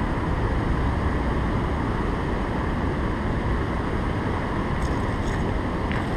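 Steady rush of water pouring over a low river dam, with a few faint clicks near the end.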